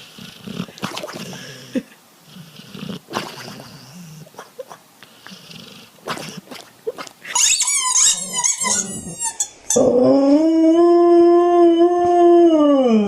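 A dog grumbling and growling quietly, then a run of short high yelps, then one long howl, the loudest sound, that rises, holds steady and falls away near the end.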